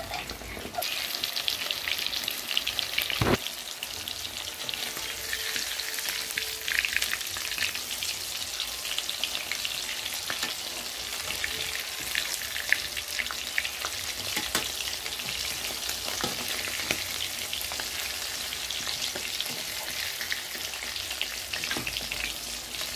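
Chicken pieces deep-frying in hot oil in an iron kadhai: a steady, dense sizzle full of small crackles, with one sharp knock about three seconds in.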